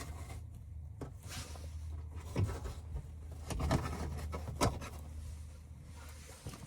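Insulation being cut out of a hole in sheet-metal ductwork: scattered short scraping and rubbing sounds with a few sharper clicks, over a steady low hum.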